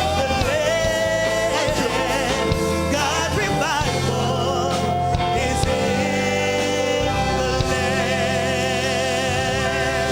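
Gospel music with singing: sustained notes with heavy vibrato over a steady bass accompaniment.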